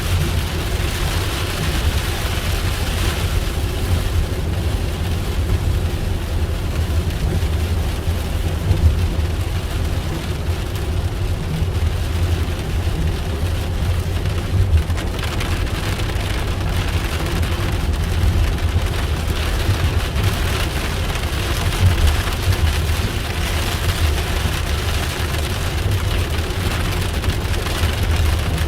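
Heavy rain on a vehicle, heard from inside over the steady low rumble of the engine and road.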